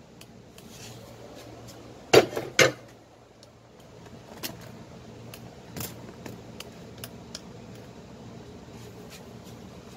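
Kitchen handling clatter as thick maja blanca is scooped with a wooden spoon into a plastic tub: scattered light clicks and scrapes, with two loud knocks about two seconds in.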